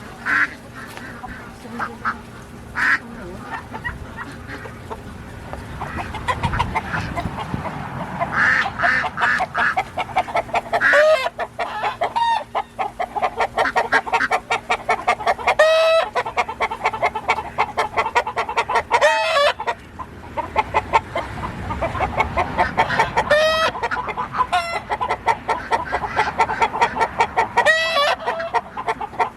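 A penned flock of poultry, mostly chickens, clucking steadily in rapid pulses. From about a third of the way in, several loud drawn-out calls rise above the clucking every few seconds.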